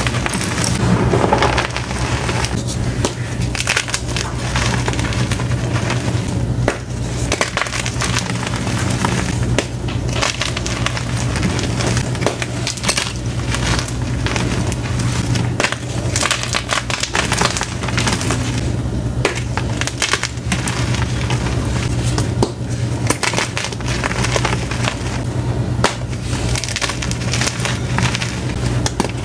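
Blocks of dyed and plain gym chalk crushed and crumbled between the fingers: a steady, dense crunching and gritty crackle of chalk breaking apart into powder.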